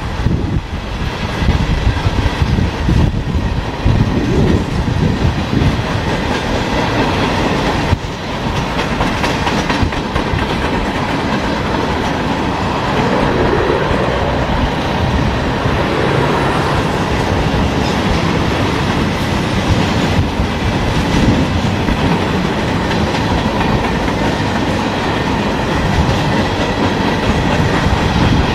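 Freight train cars rolling steadily past, a continuous rumble of steel wheels on rail with repeated wheel clicks.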